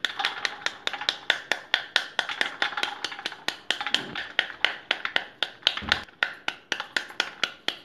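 Rapid, even tapping on the back of a cut pomegranate's rind, about five or six taps a second, knocking the arils loose so they drop onto a steel plate; the tapping stops near the end.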